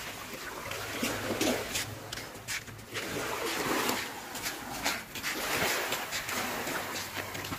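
Small waves lapping on a sandy shore, an even wash of water noise broken by many short, irregular splashes or knocks.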